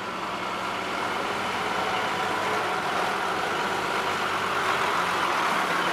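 Utility bucket truck's diesel engine idling steadily at the work site, a constant hum that fades in at the start.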